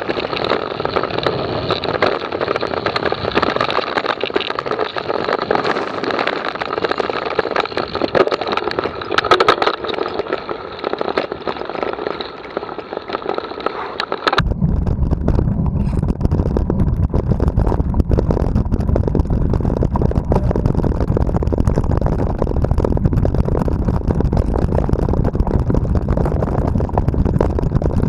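Mountain bike ridden fast over a rough dirt and grass track: steady tyre and riding noise with many small clicks and rattles from the bike over the bumps. About halfway through it changes abruptly to a heavy low wind rumble on the action camera's microphone, with the rattling going on.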